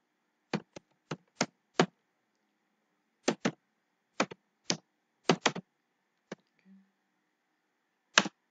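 Typing on a computer keyboard: about fourteen separate keystroke clicks at an uneven pace with short pauses, the loudest near the end.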